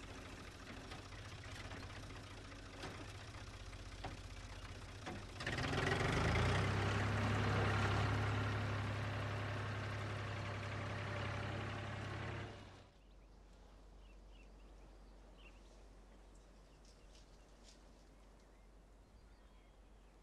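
Ford tractor engine running steadily, then revving up about five seconds in as the front loader lifts its bucket, running hard for several seconds before cutting off abruptly about thirteen seconds in. After that, only faint quiet room tone.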